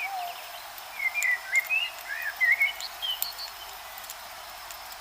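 Birds calling in a forest: a run of short whistled chirps from about one to three seconds in, over a steady hiss of background ambience.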